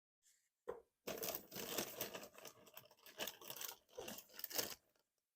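Plastic packaging crinkling and rustling in irregular crackles for about four seconds as modular power-supply cables are unwrapped and handled, after a single click.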